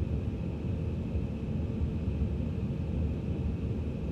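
Aircraft engines heard as a steady low rumble, with a faint steady high-pitched whine above it.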